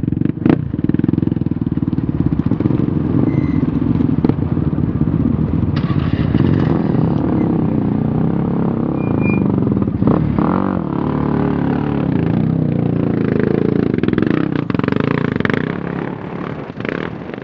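ATV engines running close by, steady and loud, dropping away near the end.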